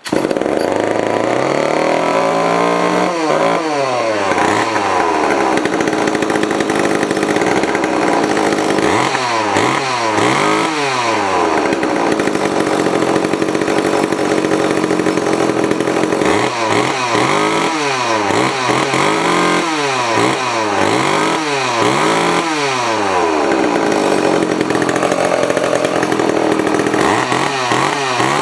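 Vintage Montgomery Ward Featherweight two-stroke chainsaw running on its first test after reassembly, without bar or chain fitted. Its pitch swings up and down in several bursts as the throttle is blipped, between stretches of steadier running.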